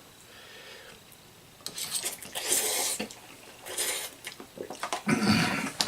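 Eating utensil scraping and clinking against a bowl of ramen noodles, in a few short bursts after a quiet start.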